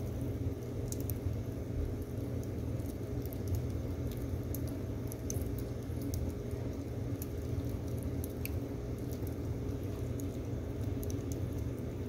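Split firewood burning in a wood stove's firebox: scattered small crackles and pops, irregular, over a steady low rumble.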